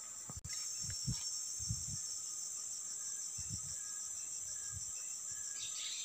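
Forest insects, crickets or cicadas, keeping up a steady high-pitched chorus with a fine pulsing texture, with a few soft low thumps in the first couple of seconds.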